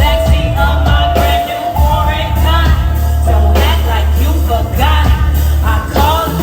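Live music with a woman's lead vocal over a heavy bass, heard through the room.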